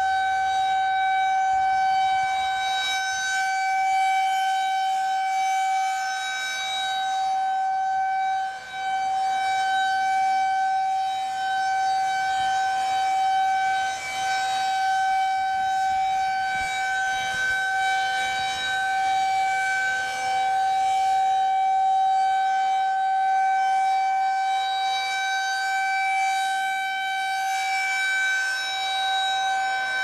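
Federal Signal 2001-SRNB rotating electromechanical warning siren sounding a steady single-pitch tone during a monthly test. Its loudness swells and dips as the horn rotates.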